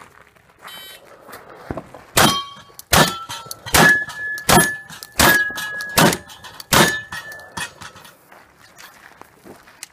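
Shotgun firing seven rapid shots about three-quarters of a second apart, each followed by a short metallic ring from the steel popper targets being hit.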